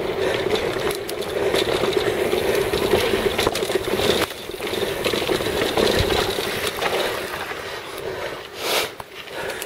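Mountain bike running fast down a dirt trail: steady tyre noise on dirt and gravel, with the bike rattling and knocking over bumps. The noise eases briefly about four seconds in and again near the end.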